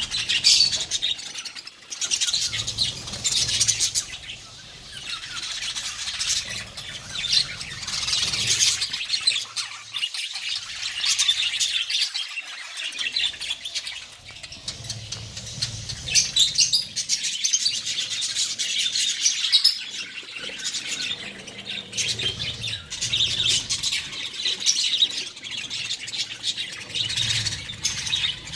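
A colony of budgerigars chattering: many quick high chirps overlapping without a break, swelling and easing every few seconds.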